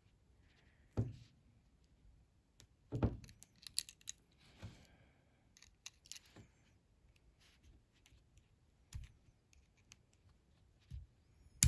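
Tip of a small knife prying at a plastic action-figure joint: scattered small clicks and scrapes of blade on hard plastic as it is levered around the seam, with a sharp snap near the end as the piece pops loose.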